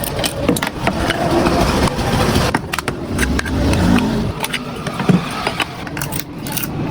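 A motor vehicle engine running, louder for the first four seconds or so, with scattered clicks and taps and one sharper knock about five seconds in.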